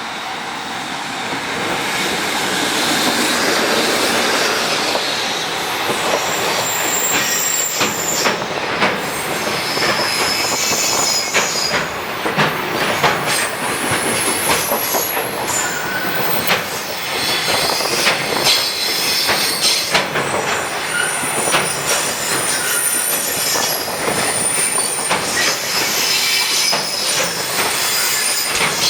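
Freight train hauled by an EF65 electric locomotive passing close by: the noise builds over the first few seconds, then a long run of wagons goes by with rapid clicks of wheels over rail joints and high, thin wheel squeals coming and going.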